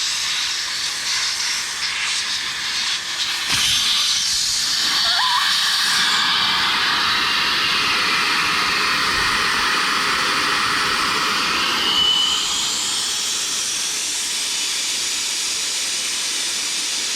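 Air hissing steadily out through the open valve stem of a deflated motorcycle rear tire, with a brief whistle about twelve seconds in.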